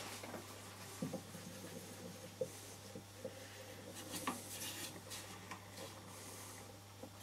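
Faint rubbing and light wooden knocks of a mulberry-wood box and its lid being handled and turned by hand on a stopped lathe, with a few small clicks over a steady low hum.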